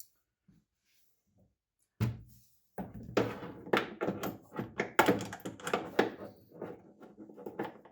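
Half-inch drive socket and wrench knocking and clicking against the metal hood-shock bracket and bolt as it is worked into a tight spot. There is one thunk about two seconds in, then a quick irregular run of sharp metallic knocks. The bracket blocks straight access, so the socket won't seat squarely.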